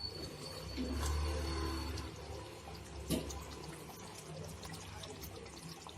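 Thick chicken gravy bubbling and popping as it simmers in an open pan, thickening, with a low rumble about a second in and a single click near three seconds.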